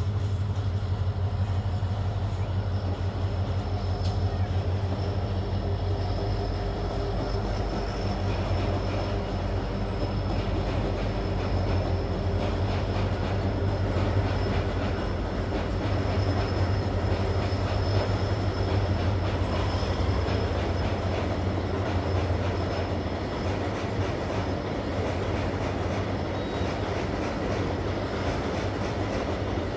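Freight train of goods wagons running steadily across a steel truss bridge: a continuous low rumble with a fast clickety-clack of wheels, and a faint thin high whine through much of it.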